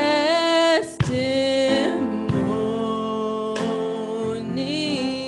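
Slow gospel worship song sung over instrumental backing, the voice holding long notes.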